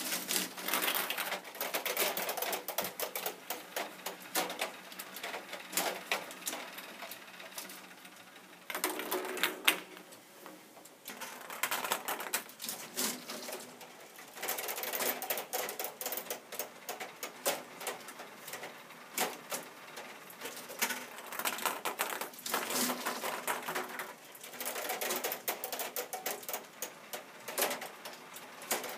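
Plastic K'Nex mechanism of a home-built ping-pong ball fruit machine running: dense, rapid clicking and rattling that comes in runs, easing off briefly about a third of the way in and again near the end.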